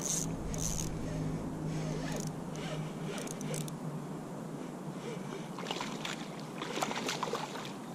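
Water lapping and sloshing around a float tube while a hooked pike is fought on the rod, with a thicker run of splashing about two-thirds of the way in as the fish thrashes at the surface.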